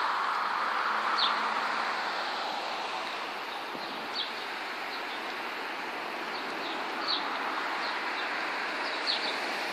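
Small birds chirping in short, high calls that dip in pitch, scattered irregularly every second or so, over a steady hiss of outdoor street ambience.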